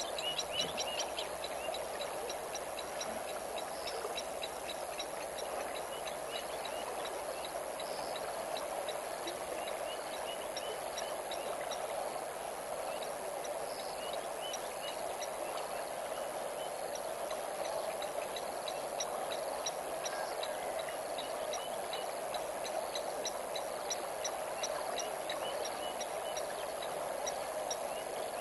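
Steady rush of flowing river water, with fast, rhythmic high-pitched insect chirping above it and scattered short bird chirps.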